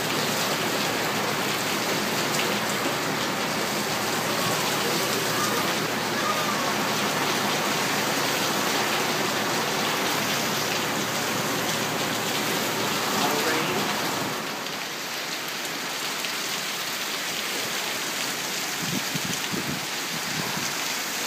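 Heavy thunderstorm rain pouring down in a steady, loud hiss. It eases slightly about two-thirds of the way through.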